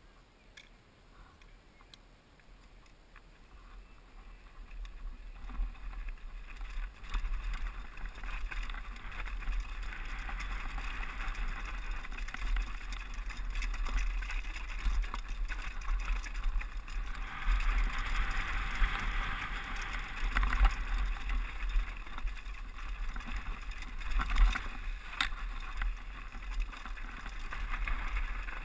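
Downhill mountain bike rolling over a rocky gravel trail, heard on a rider-mounted GoPro: tyre crunch and rattle mixed with wind rush that builds over the first few seconds as the bike picks up speed. A few sharp knocks from the bike hitting rocks come in the second half.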